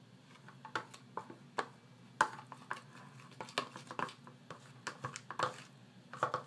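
A spoon clinking and scraping irregularly against a dish while stirring wet cat food mixed with milk replacer powder and water, starting about a second in.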